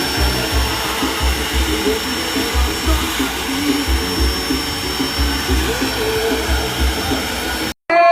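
Vacuum cleaner running with a steady high whine and airflow hiss, over bass-heavy music with deep thumping beats; both cut off abruptly near the end.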